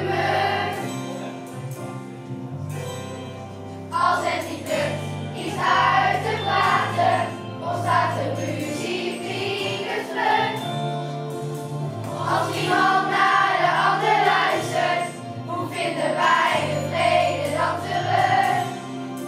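A group of children singing a song from a school musical together, over musical accompaniment with a steady bass line.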